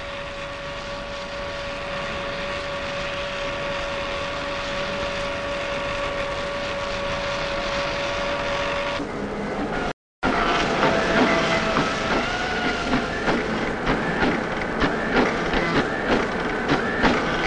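Machinery running: a steady hum with a constant whine. About ten seconds in the sound cuts out briefly, then gives way to a wavering whine with rapid, irregular mechanical clicking.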